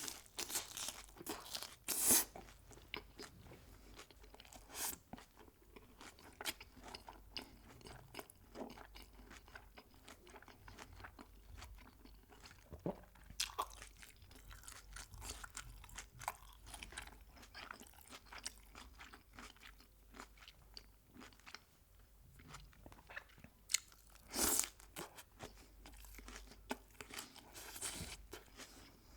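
Close-miked eating of crispy fried chicken: irregular crunchy bites and chewing, with the loudest crunches about two seconds in and again near the end.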